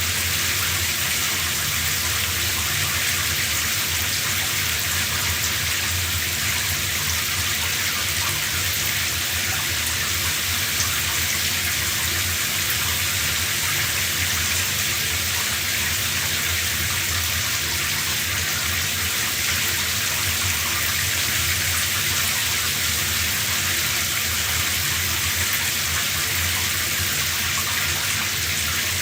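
Shower running steadily, water spraying and splashing in an even hiss.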